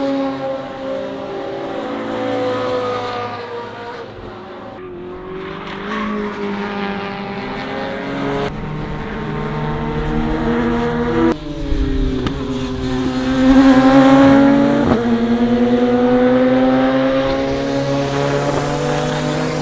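Mazda MX-5 Miata four-cylinder engine revving hard under load, rising and falling in pitch through gear changes. The sound jumps abruptly a few times.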